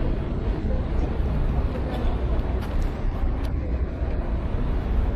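Steady low rumble of city street ambience, with faint voices of passers-by.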